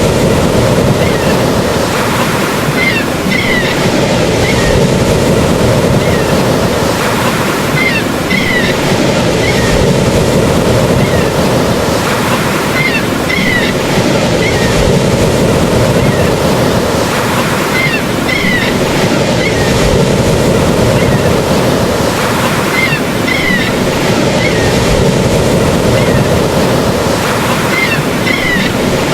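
Steady wash of ocean surf at an even level, with short high chirps recurring every five seconds or so.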